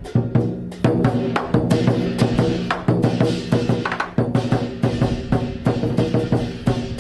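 Traditional Cantonese lion dance drumming in the Hok San (Heshan) style, played as a backing track: a rapid, steady run of drum strikes.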